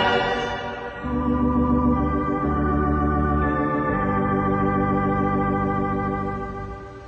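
Church organ playing held chords over a few changing deep bass notes as an interlude between sung verses of a hymn, fading away near the end.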